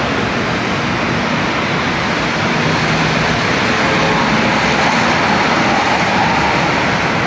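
Steady city traffic noise: a continuous rumble of passing vehicles, with a faint engine hum rising slightly in the middle.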